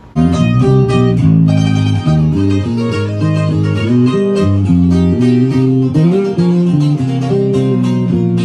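Guitar music: plucked notes moving over a line of bass notes, cutting in abruptly just after the start.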